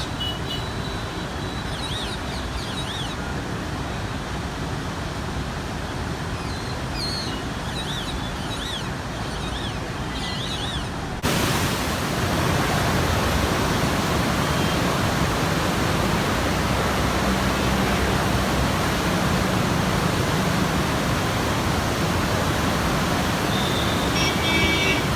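Heavy rushing floodwater from open barrage gates, a steady roar of water with no rhythm. It gets abruptly louder and brighter about eleven seconds in. In the first half there are a few faint, short high chirps over the roar.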